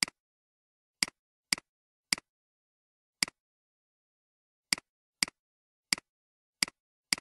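Computer mouse button clicking about ten times at an uneven pace, each a sharp press click followed at once by a softer release click.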